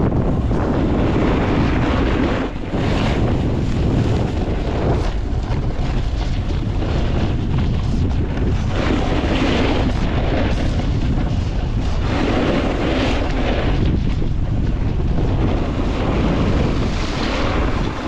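Wind rushing over the microphone on a downhill ski run, with a hiss that swells every second or two as the skis carve across the snow.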